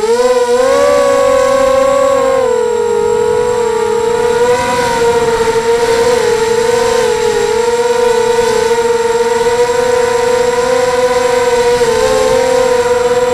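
Electric motors and propellers of a 250-size mini quadcopter in flight: a loud, steady whine heard from its onboard camera. The pitch rises about a second in, then wavers slightly with the throttle and dips briefly near the end.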